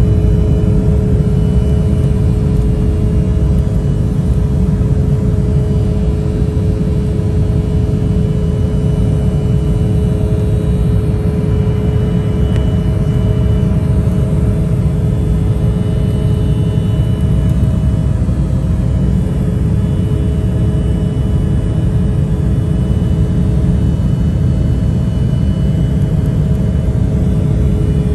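Cabin noise of an Embraer 175 lifting off and climbing at takeoff power: the steady, loud rumble of its two CF34 turbofan engines and rushing air, with a steady hum over it.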